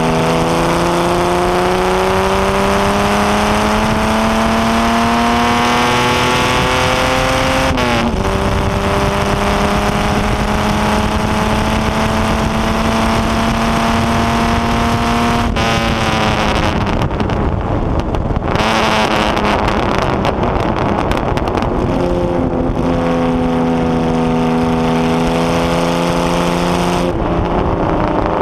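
HW Alta-Jaguar's Jaguar straight-six racing engine at full song, heard from the open cockpit. It pulls up through the revs, changes up about eight seconds in and pulls again. Around halfway it lifts off for several seconds for a corner, then comes back on the throttle and holds steady revs before another lift near the end.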